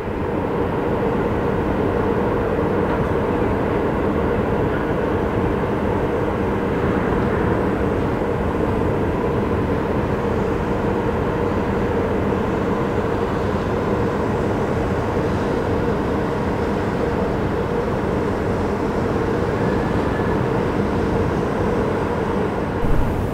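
Steady loud drone of heavy machinery: a constant low hum over a rumble, with a brief louder knock near the end.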